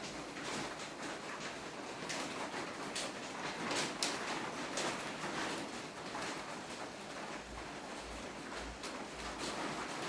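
Rustling and scattered light clicks and taps of hands handling a phone box and its packaging, over a steady hiss, with the clicks bunched together a few seconds in.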